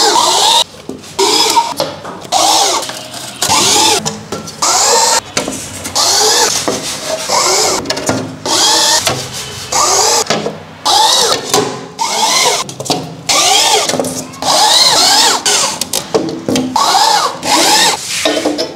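Cordless drill-driver revving up and back down in short runs, about one a second, driving screws into the metal stud framing of gypsum-board shelving.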